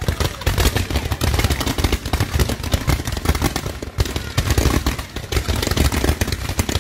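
Consumer fireworks, several multi-shot aerial cakes going off together: a rapid, dense barrage of pops and bangs, with a brief lull about four seconds in.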